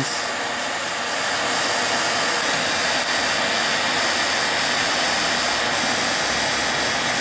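Hot air gun blowing steadily, heating wet spark plugs to dry them out.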